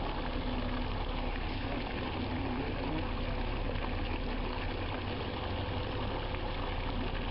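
Construction machinery engine running steadily at a concrete pour, with a constant noisy wash over it.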